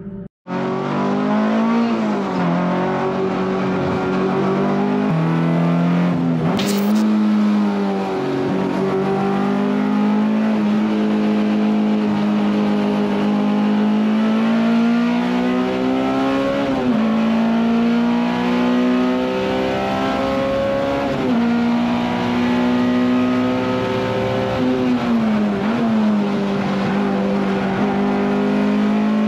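Honda S2000 race car's four-cylinder VTEC engine pulling hard on a track lap, heard from inside the cockpit: the engine note climbs and drops back at each gear change, several times over. There is a short sharp crack about seven seconds in.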